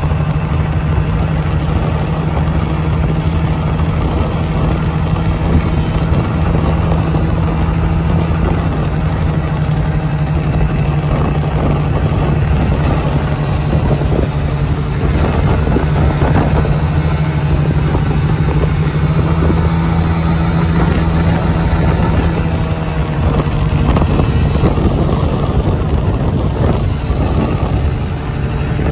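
Mondial Wing 50i's 50 cc fuel-injected scooter engine holding a steady drone at a cruise of about 50–55 km/h on the flat.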